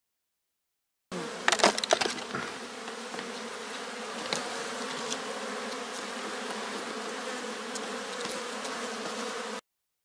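Honey bees buzzing at a hive entrance, a steady hum. Near the start come several sharp clicks and rattles as the wire mesh screen is pulled away from the entrance, with a few lighter clicks later.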